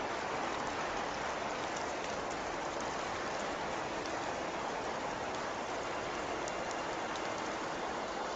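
Steady hiss of rain or wet snow falling on surfaces, with a few faint scattered ticks of drops.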